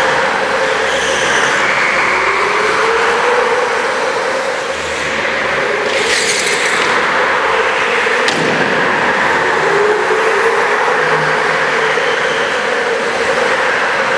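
Go-kart engines running as the karts lap and pass by, their pitch rising and falling as they speed up and slow for the corners. There is a brief hiss about six seconds in and a sharp click a couple of seconds later.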